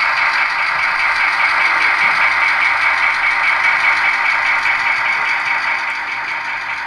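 HO-scale model freight train rolling away along the track, a steady running noise that fades near the end as the cars leave.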